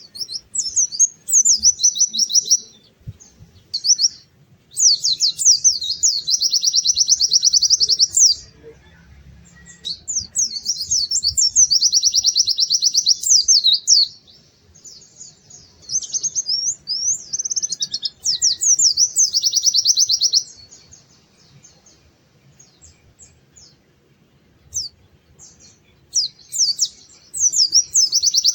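White-eye (pleci) songbird singing in fast, high, twittering trills, phrases a few seconds long with short pauses between them. About two-thirds of the way through it falls nearly quiet for several seconds, with only a few scattered notes, then starts a new phrase near the end.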